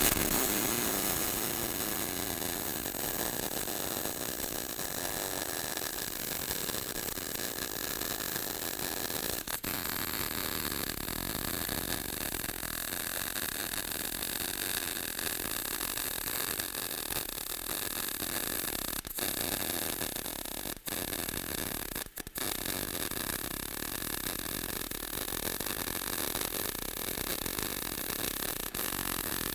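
MIG welding arc from a 110 V H&S Autoshot HSG130 welder running hard (solid) wire under shielding gas, a steady hiss along one pass on a T-joint, with a few brief breaks in the arc. The welder felt the voltage getting weak toward the end of the pass, the machine being fed through a long extension cord.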